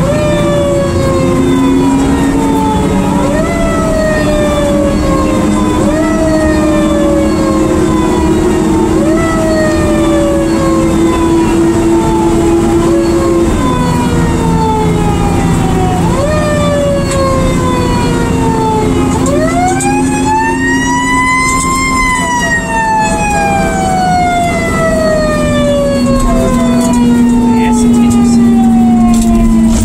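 A fire engine's siren, heard from inside the cab, sweeps up sharply and falls away slowly about every two and a half seconds, then gives one long slow rise and fall in the second half. The truck's engine runs underneath, its pitch climbing slowly and dropping suddenly about halfway through, as at a gear change.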